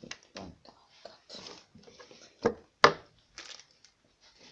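Rustling and crinkling as things are handled on the table, in short irregular bursts, with two sharp knocks about two and a half seconds in, the second the loudest.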